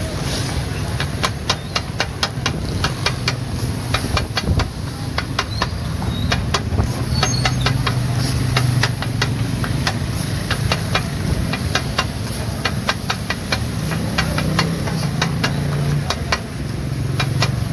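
Metal spatulas clacking quickly and irregularly on a flat iron griddle, several strikes a second, over a steady low engine-like hum.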